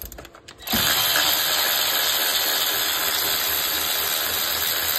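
Cordless power ratchet running steadily, starting about a second in after a few light clicks, backing out a thermostat housing bolt on a 5.7 HEMI.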